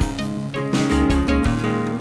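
Background music led by plucked guitar, with a steady beat and bass notes.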